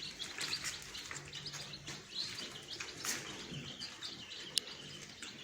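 A group of young hybrid chickens' chicks peeping continuously, many short high chirps overlapping, with one brief sharp tick about four and a half seconds in.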